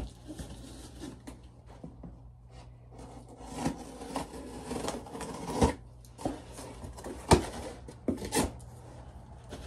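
A knife slitting the tape on a cardboard shipping box, with cardboard scraping and rustling as the flaps are worked open, and several sharp knocks as the box is handled, the loudest about seven seconds in.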